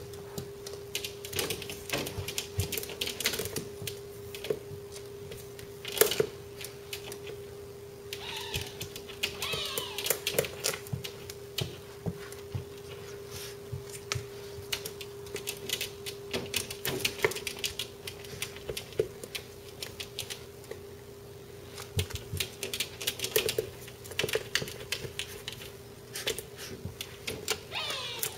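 A puppy's claws and paws tapping and scratching rapidly and irregularly against a glass door, with a couple of brief high whines around nine seconds in and near the end, over a steady low hum.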